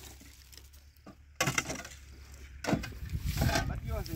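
A shovel scraping and scooping dry compost material off a pickup truck bed and tossing it onto a heap: two rough, scratchy stretches, the first starting suddenly about a second and a half in.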